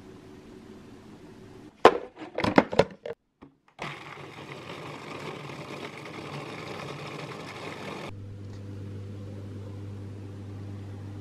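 Several sharp knocks about two seconds in, then a food processor's motor running as it blends walnuts and cream cheese into a paste. About eight seconds in the sound changes to a steadier, lower hum.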